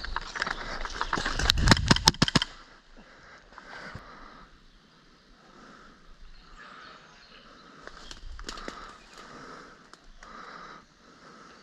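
Footsteps on rough outdoor ground: a loud scuffle of rustling with a quick run of sharp clicks in the first two and a half seconds, then quieter, evenly paced walking steps.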